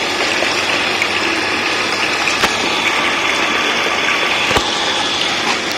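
Water streaming from open taps on PVC pipe branches into plastic buckets, a steady rushing splash, with the 0.5 HP water pump motor running under it. Two brief knocks partway through.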